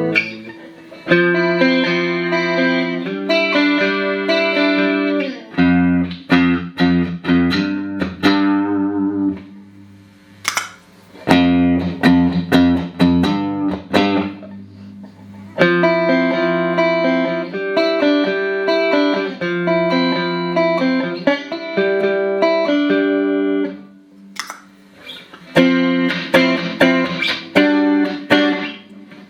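Clean electric guitar played through a Boss CE-5 Chorus Ensemble pedal in stereo, picking chord patterns and single notes with a few short pauses. Deeper low notes join in for a stretch in the middle.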